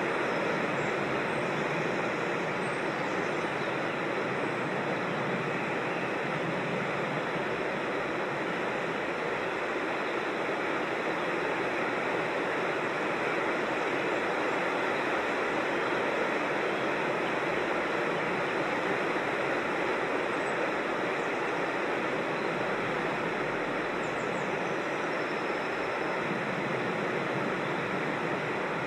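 Steady rush of creek water tumbling over rocks in a small waterfall, with a faint high chirp near the end.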